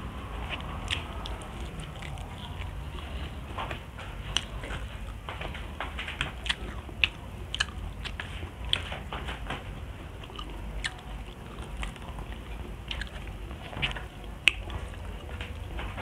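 Close-miked chewing of fried tilapia and rice, with irregular sharp clicks and smacks over a low steady hum.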